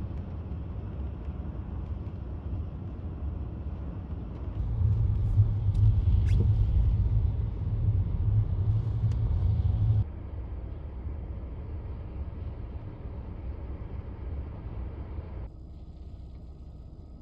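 Storm wind rumbling on the microphone across several cuts. It is loudest for about five seconds in the middle, where a few faint ticks come through, and drops at each cut.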